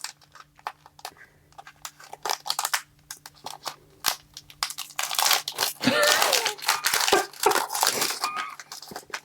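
Foil Pokémon card booster pack wrapper being torn open and crinkled in the hands: scattered crackling rustles that turn into a dense run of crinkling about halfway through, over a faint steady hum.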